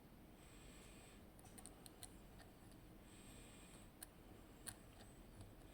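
Faint, scattered clicks of a lock pick working the pin stack of a zIKON SK6 Sperrwelle Extra Code cylinder held under heavy clockwise tension, as pins are found binding and set one by one.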